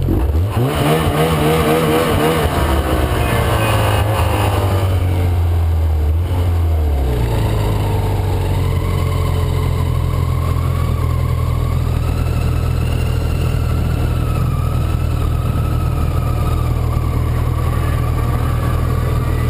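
Snowmobile engine under load on a steep snow climb, heard from the rider's seat. Its pitch shifts and wavers over the first several seconds, then it runs at a steady high speed.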